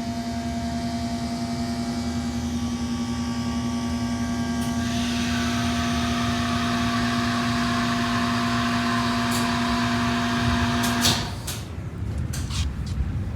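Hydraulic elevator power unit (submersible pump motor) running with a steady hum. About five seconds in, a hiss of oil rushing through the valve joins it. Near eleven seconds both stop abruptly, and a few clicks of the valve and controller follow. The owner describes this unit as a bit low on oil.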